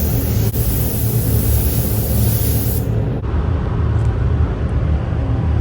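A machine running steadily with a low rumble and hiss; the high hiss cuts out about three seconds in.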